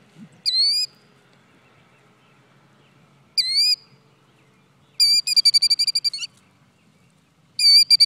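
Killdeer calling in alarm as part of its broken-wing distraction display near its ground nest: two single shrill drawn-out calls a few seconds apart, then rapid trilling runs of about ten notes a second, one lasting over a second and another starting near the end.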